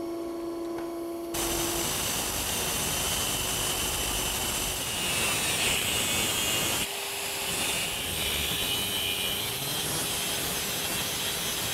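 Angle grinder with a 4-inch cutoff wheel cutting through an electric motor's shaft, starting about a second in after a steady hum, with a brief dip about seven seconds in. The shaft is spun by a 12-volt battery during the cut to keep it true.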